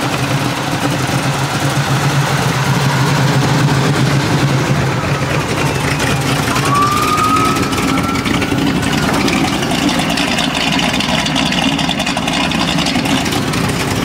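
The iron-headed 455 Pontiac V8 of a 1970 Pontiac LeMans idling steadily. A brief rising whistle sounds about halfway through.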